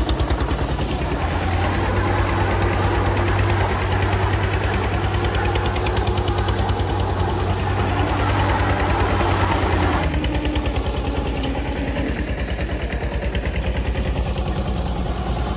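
Diesel engines of an Eicher 242 tractor and a Tata Sumo Gold working hard under load as they pull against each other on a tow rope, with a fast, even chugging beat. The sound gets duller about ten seconds in.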